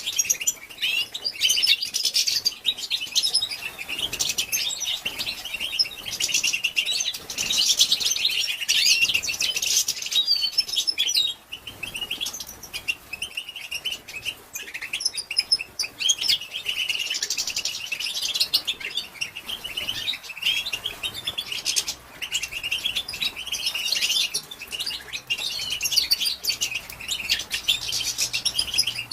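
Female European goldfinch twittering (the 'batbata' chatter used to stir males into song): rapid, high tinkling calls that run almost without a break, with short lulls about eleven and twenty seconds in.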